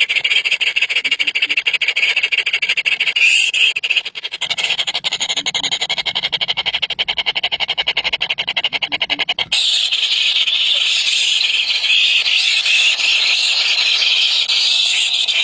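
Baby birds' begging calls: a dense, continuous run of rapid high-pitched chirps from hungry nestlings, shifting abruptly twice.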